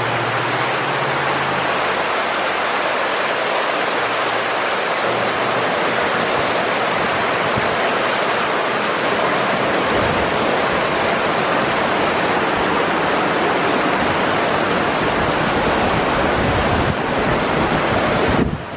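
Heavy rain pouring in a steady, loud rushing hiss, with wind. It drops off abruptly just before the end.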